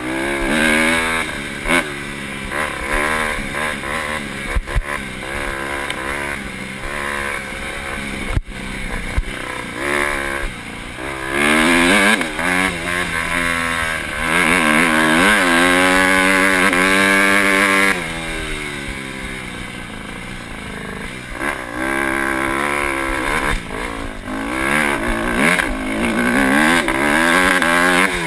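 Dirt bike engine under way, its pitch repeatedly climbing and dropping as the rider twists the throttle and shifts gears. It holds at high revs for several seconds past the middle before dropping back.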